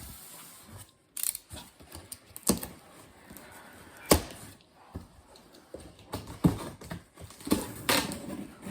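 Irregular light clicks and knocks, as of objects being handled and set down, with one sharper knock about four seconds in.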